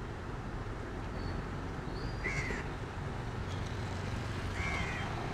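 Crow cawing twice, two short calls about two seconds apart, over a steady low rumble of street traffic.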